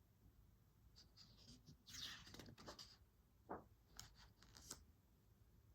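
Faint rustle of a picture book's page being turned, with a few soft clicks of handling.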